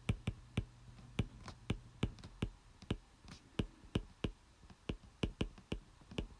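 A rapid, irregular series of light clicks and taps, roughly three to four a second.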